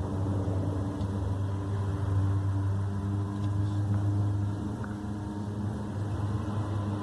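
A steady low drone with a strong deep hum and several higher pitched layers above it, its loudness swelling and easing slowly.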